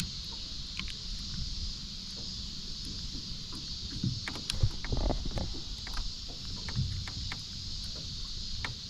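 Small boat on the water: a steady rumble and hiss of water and wind, with scattered light knocks and clicks from the boat, thicker toward the middle.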